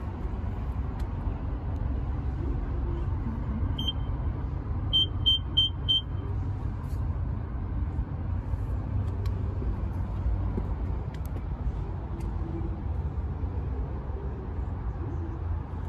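Short electronic beeps from a gas-station tire air charger's push-buttons as the pressure is set: one beep, then about a second later four quick beeps in a row. A steady low rumble runs underneath.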